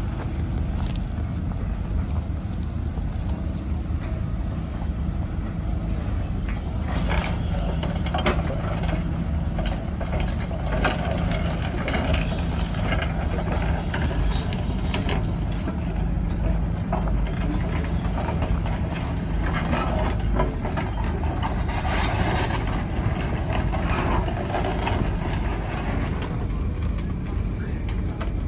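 Heavy machine's diesel engine running steadily, with a steady hum from about seven to twenty seconds in and scattered metallic clanks and knocks through the middle of the clip.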